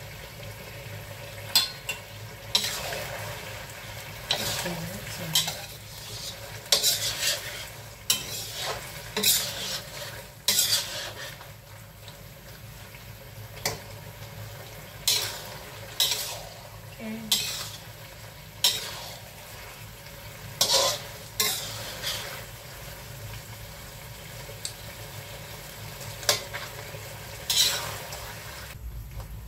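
Metal spatula stirring and scraping around a stainless steel wok, with irregular clinks and scrapes in runs, over the low sizzle of bean curd skin, mushrooms and scallops cooking down in their sauce.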